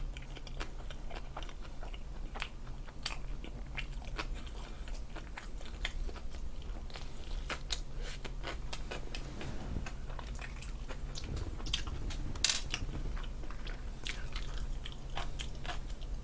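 A mouthful of pizza being chewed close to the microphone: many small wet mouth clicks and soft crunching, over a steady low hum.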